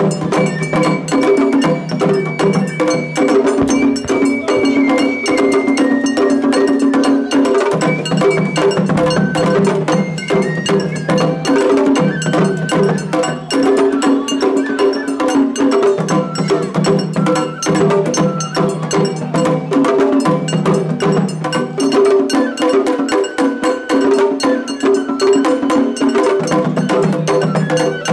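Japanese festival hayashi ensemble playing: fast, steady drum and metal-gong strikes under a high, held melody line.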